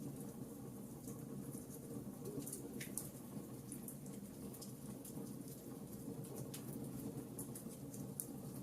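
Wood fire burning in a fireplace: a steady low rumble of flames with irregular small crackles and pops.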